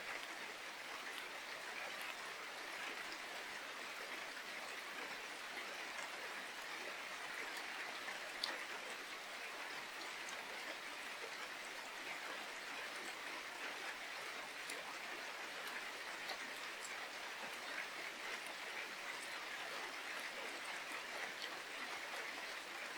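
Steady rain falling, an even hiss with scattered drop ticks, and one sharper tap about eight and a half seconds in.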